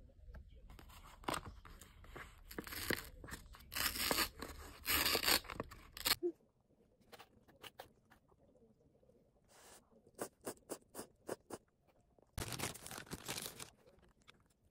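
Food packaging being handled and opened: crinkling and tearing of plastic and paper in repeated bursts from instant cup noodles and a wrapped kimbap roll. About ten seconds in there is a quick run of light clicks, then another burst of rustling.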